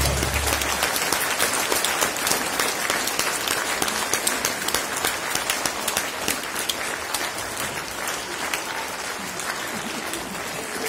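Audience applauding in a hall, dense clapping that slowly fades; the last low held note of the dance music dies away about a second in.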